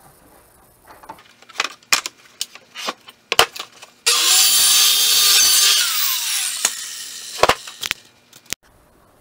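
A handheld electric saw cutting plywood. Knocks from the board and tool being handled come first. About four seconds in the saw runs for about three seconds, then its motor winds down with a falling whine, followed by a few more knocks.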